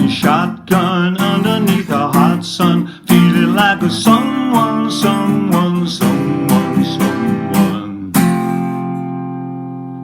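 Acoustic guitar strummed in a steady rhythm, ending about eight seconds in on a final chord that rings and slowly fades.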